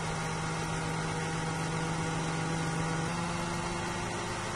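Formula 1 car's turbocharged V6 hybrid engine running at low, steady revs on a slow in-lap, heard as a steady hum through the team radio feed; its pitch steps slightly about three seconds in.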